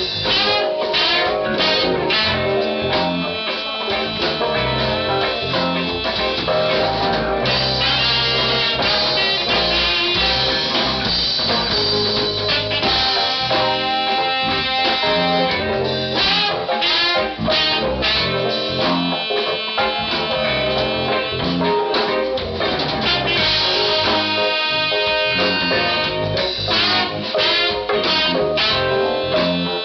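A funk band playing an instrumental number, with electric guitar, horns and drum kit keeping a steady groove.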